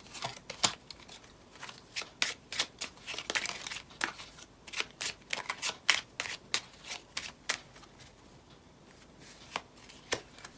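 Fortune-telling cards being shuffled by hand: a run of quick papery snaps and flicks, fewer and quieter over the last few seconds.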